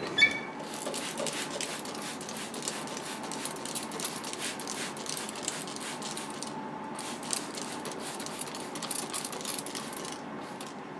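Plastic trigger spray bottle squirted many times in quick succession, misting water onto a carved wooden bust to dampen the wood before painting. The spraying pauses briefly about halfway through and again near the end.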